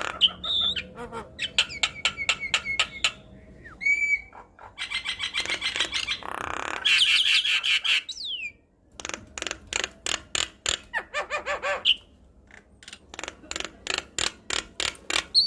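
Javan myna singing in full voice: a fast, varied string of rattling click trains, a harsh grating note about six seconds in, and a few short whistled notes.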